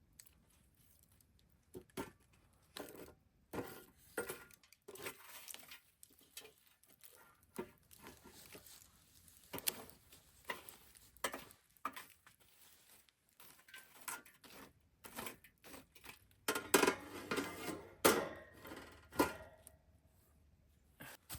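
Scattered clinks and knocks of cookware and utensils being handled, with a busier run of clattering near the end.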